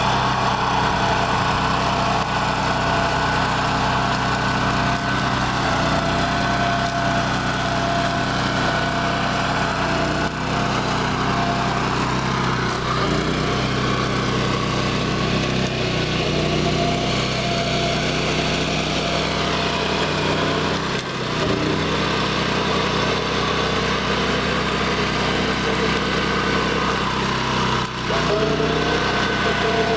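BCS 749 walk-behind tractor's 13 hp Honda gas engine running under load as its 26-inch Berta flail mower chops through dry cornstalks and cowpea vines. The engine note shifts and dips briefly a few times, about 10, 21 and 28 seconds in.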